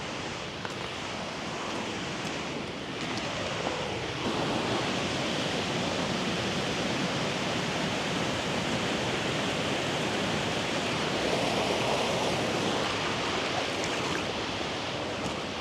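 Steady rush of water, growing a little louder about four seconds in.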